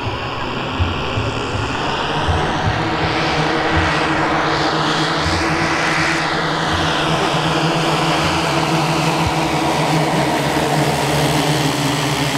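Twelve 10 cc OS model engines of a 1:10 scale Dornier Do X RC flying boat running together in a steady propeller drone as the model flies past, its sound shifting about halfway through as it passes.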